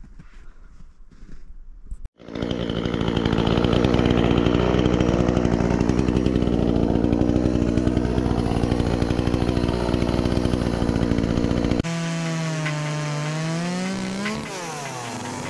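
Two-stroke chainsaw coming in abruptly about two seconds in and running at high revs with a steady note. Near the end its pitch sags and rises again as the throttle eases and opens.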